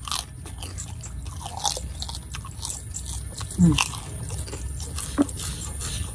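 Close mouth sounds of people eating by hand, with many small crisp crunches of prawn crackers (kerupuk) being bitten and chewed along with ketoprak. A short vocal sound about three and a half seconds in is the loudest moment.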